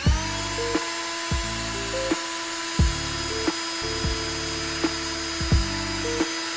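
Cordless drill running at a steady high speed while drilling a mounting hole for a quick-release bumper bracket. It winds up just as the sound begins and cuts off right at the end. Background music with a steady beat plays underneath.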